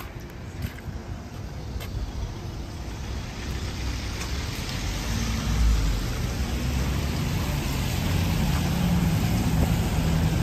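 Street traffic: a motor vehicle's engine running with a steady low hum over a hiss, growing louder through the second half.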